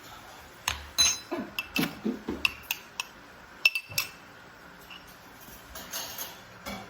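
A small spoon clinking and scraping against an ice cream dish: a quick series of sharp clinks in the first half, then a few more near the end.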